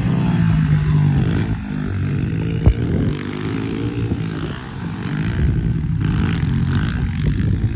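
Small pit bike engine running and revving up and down as the bike is ridden, with one sharp knock a little under three seconds in.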